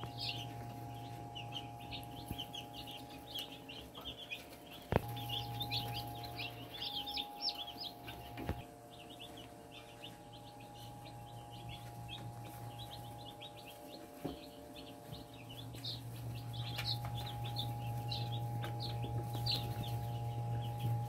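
A brood of day-old broiler and Marans chicks peeping, many short high chirps overlapping, busier at the start and end than in the middle. A steady low hum runs underneath.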